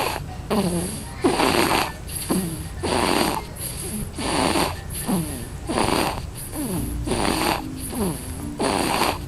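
A baby making a quick run of snorting, breathy noises, about one every 0.7 s, each with a short squeak that falls in pitch.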